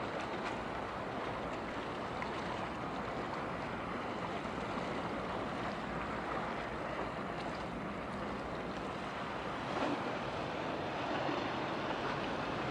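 Steady rushing of water from a passing product tanker's bow wave and wash, mixed with wind on the microphone and a faint, steady low drone from the ship.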